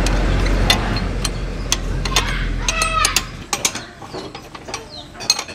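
Steel ring spanner working a rusted nut on an old cart's wheel axle: irregular metal clicks and creaks as the spanner turns and is reset. A low rumble underneath stops about three and a half seconds in.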